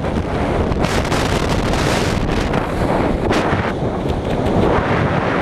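Freefall wind rushing over a body-mounted camera's microphone during a tandem skydive: a loud, steady blast of wind noise, with the hiss swelling about a second in and again past three seconds.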